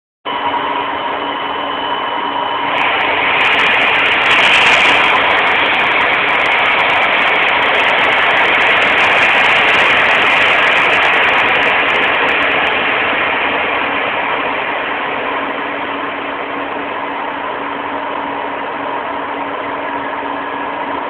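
Steady whine and hum of a Learjet 35 heard from inside the cabin with its TFE731 turbofan engines running. A few seconds in, a loud rush of air swells up, holds for several seconds and then slowly fades: the cabin pressure being dumped, which sends fog through the cabin.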